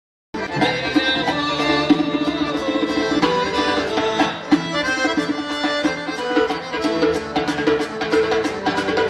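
Accordion-led dance music with a quick, steady beat, cutting in a moment after a brief silence.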